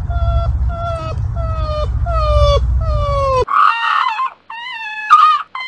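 Porcupine whining: a quick run of about eight short cries, each sliding down in pitch and growing a little longer, over a low rumble. About three and a half seconds in, the rumble stops and higher, wavering whines follow, the loudest near the end.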